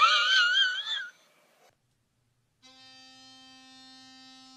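A high wavering note lasts about a second and breaks off. After a short silence an electric toothbrush starts buzzing with a steady, even drone.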